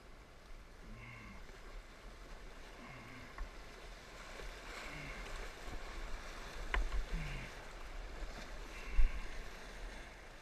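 Shallow creek water rushing and churning around a kayak as it runs a rocky riffle, growing louder in the middle. Paddle strokes come about every two seconds, with a sharp click a little past halfway and a louder knock near the end.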